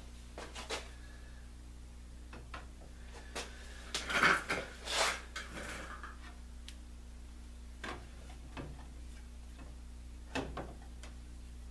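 Light metal clicks and knocks from hands handling parts and screws in a transceiver chassis, with a louder scraping clatter about four to five and a half seconds in, over a faint steady low hum.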